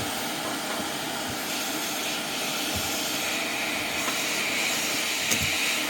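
ATTEN ST-862D hot air rework station blowing a steady rush of hot air from its brushless fan, heating solder joints to free a component from a circuit board. The hiss brightens about halfway through, and a faint click comes near the end.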